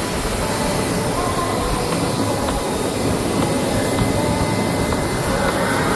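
Jet airliner engines running: a steady, even rush of engine noise.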